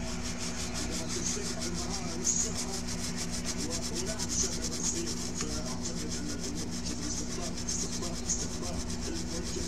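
Rapid back-and-forth scrubbing on a circuit board, several strokes a second, as corrosion from liquid damage is cleaned off, over a steady low hum.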